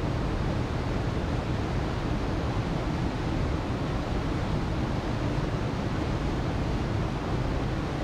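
Small waterfalls pouring into a rock pool: a steady rush of falling and churning water.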